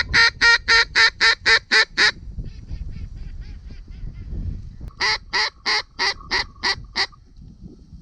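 Mallard duck call sounding loud, evenly spaced quacks, about four a second. A run of about nine opens the clip, fainter quacks follow for a second or two, and a second loud run of about seven comes near the end.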